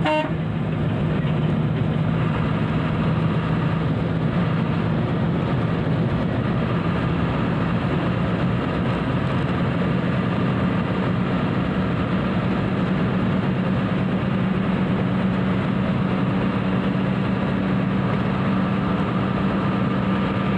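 Steady engine drone and road noise heard from inside a vehicle cruising at highway speed, the low engine note edging slightly higher about halfway through.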